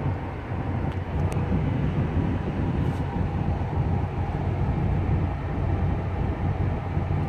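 Ford Crown Victoria's 4.6-litre V8 and road noise heard from inside the cabin while cruising steadily: an even low rumble.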